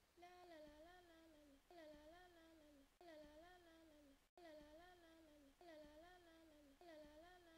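Faint looped tonal sound effect: a short, hum-like phrase with a wavering pitch, repeated over and over about every second and a half, with a brief break about four seconds in.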